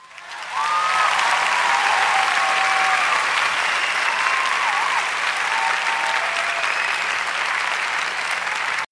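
Recorded crowd applause with a few faint cheers over it, dropped in as a sound effect. It swells in at the start and cuts off abruptly near the end.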